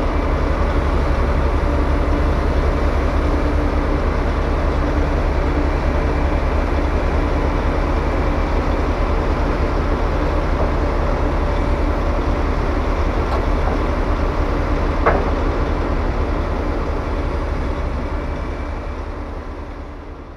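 Heavy diesel engine of a truck-mounted drum wood chipper running steadily, with one sharp knock about fifteen seconds in. The sound fades out over the last few seconds.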